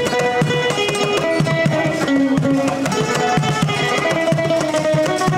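Music: a plucked-string melody over a steady hand-drum beat.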